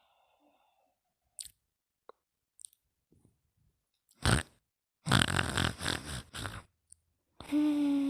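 Slow snoring with long pauses between breaths: a short sharp snort about four seconds in, then a rattly snoring breath lasting about a second and a half. Near the end comes a drawn-out whistling note that dips slightly in pitch.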